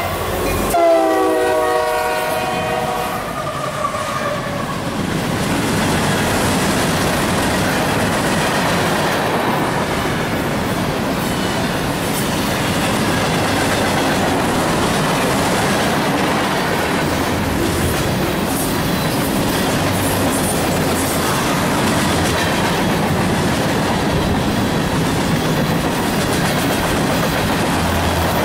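CSX mixed freight train passing, led by two EMD SD70AC, a GE ES40DC and a GE CW44AC diesel locomotives: the air horn's last blast drops in pitch as the lead units go by and stops about three seconds in. Then the locomotives and covered hoppers roll past with steady wheel clatter.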